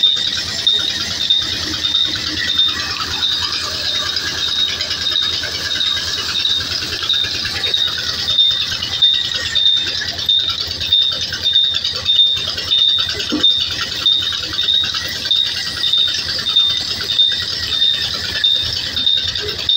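Large belt-driven log bandsaw running and cutting through a log, with the rattle of its flat drive belt and pulleys. A high ringing tone pulses in an even, steady rhythm.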